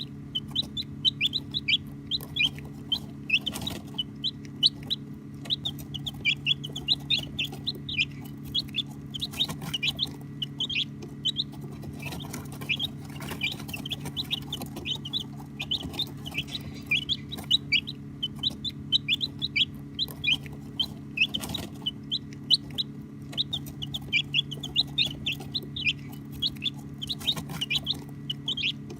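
A brood of baby chicks peeping continuously, a dense stream of short high-pitched peeps, with a steady low hum underneath.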